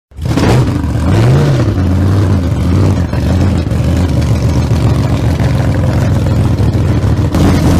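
Engine running loudly, with a short rise and fall in revs about a second in, then cutting off abruptly.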